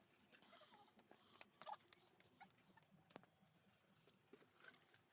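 Near silence, with faint scattered ticks and soft rustles.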